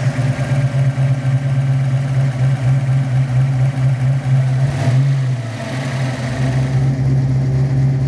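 Ford Foxbody Mustang's 5.0 V8 idling steadily at operating temperature while its idle speed is set at the throttle body, settling at about 900 rpm. The idle note wavers briefly about five seconds in.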